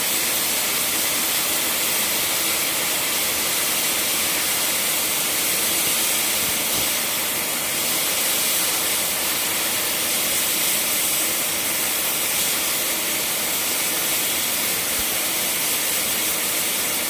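Welding arc hissing steadily and without a break, a bright, even hiss.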